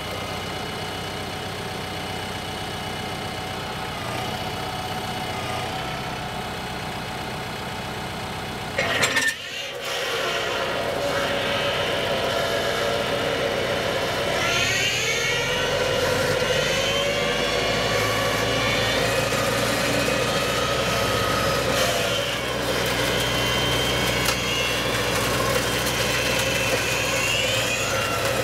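TYM tractor's diesel engine running steadily, with a brief loud clatter about nine seconds in. About fourteen seconds in the pitch rises as the engine revs up to drive the front-loader-mounted Lane Shark brush cutter, which then runs steadily at speed.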